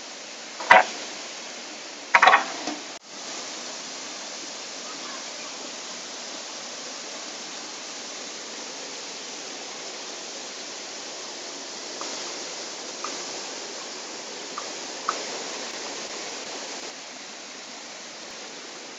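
A rushing stream flowing over rocks, a steady water noise throughout. A couple of sharp knocks come in the first few seconds, with a few faint clicks later.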